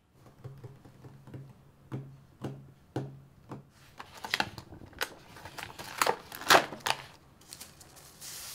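Clear plastic clamshell sushi box being handled and prised open: a run of sharp plastic clicks and crackles, coming thickest and loudest between about four and seven seconds in.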